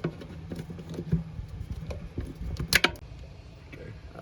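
An Allen key turning a screw out of a fridge-lid hinge: small metal clicks and scrapes, with a sharper clatter about two-thirds of the way through, over a steady low hum.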